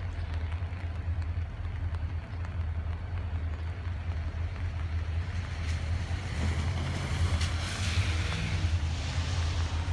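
Pair of EMD SD40-2 diesel-electric locomotives approaching, a steady low engine rumble that grows louder over the second half, with a rising hiss from the train coming on.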